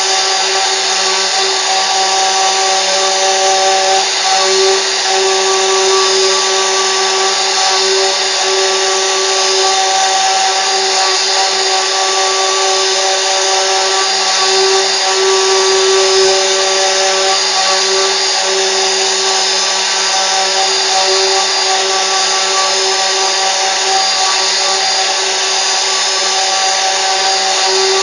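CNC router spindle running steadily, a continuous whine over a hiss of machining noise.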